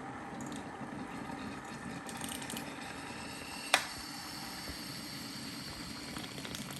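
Steady background noise with one sharp click a little past halfway and a few fainter ticks.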